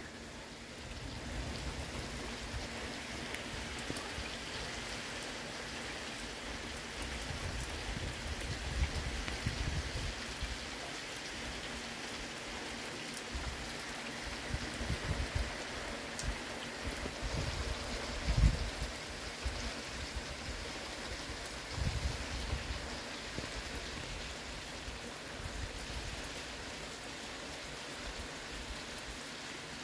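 Steady rain falling, with several brief low rumbles rising above it, the loudest about eighteen seconds in.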